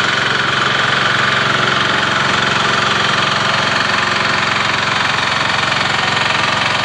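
Small riding lawn tractor engine running steadily as it tows a wagon float past at low speed.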